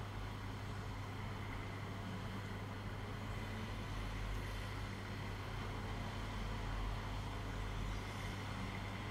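Aquarium pump running: a steady low electric hum under a soft, even hiss.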